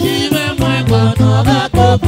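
Live band music: a man singing a melodic line into a microphone over a steady bass line, drums and electric guitar.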